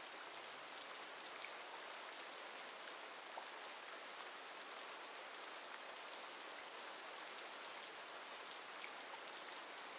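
Steady, soft rainfall with scattered drop ticks, a relaxation rain-sounds track.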